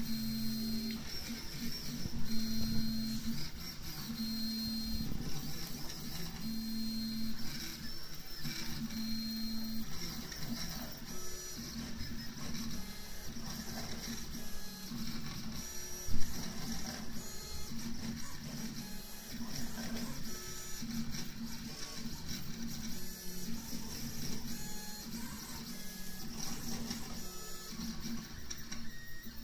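Home-built 3D printer running a print: its stepper motors hum in steady tones that start, stop and change pitch every second or two as the print head and bed move back and forth. A single sharp knock comes about halfway through.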